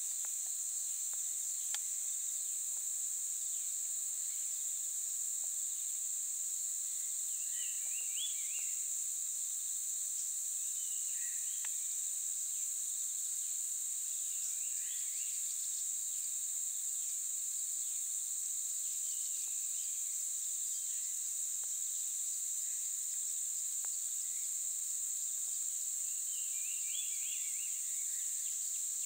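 Steady high-pitched drone of a forest insect chorus. A bird calls four times in short runs of chirping notes, a few seconds apart.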